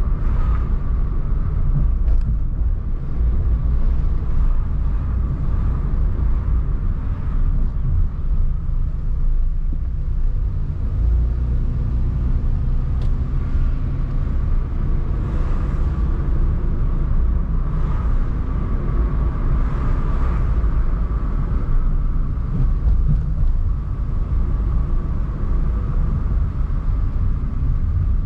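Car driving through city streets: a steady low rumble of road and engine noise that holds level throughout.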